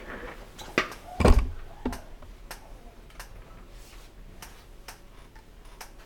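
Handling knocks and clicks as the camera is moved. The loudest is a dull thump just over a second in, followed by a few sparse, faint clicks.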